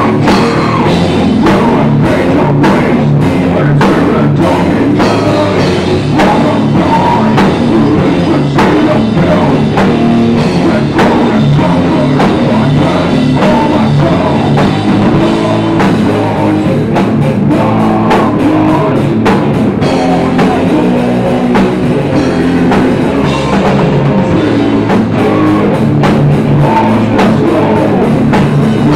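Live heavy metal band playing loud: distorted electric guitar over a pounding drum kit, with a vocalist singing into a microphone.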